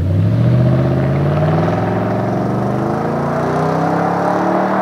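Nissan Titan's 5.6-litre V8 running through a Flowmaster FlowFX Extreme cat-back exhaust with a single dump exit, accelerating away in one long pull that rises steadily in pitch.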